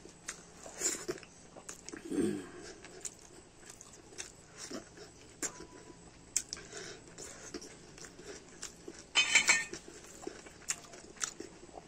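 Close-up mouth sounds of a person chewing a handful of rice and curry, with soft wet clicks and lip smacks. A short, louder noisy burst comes about nine seconds in.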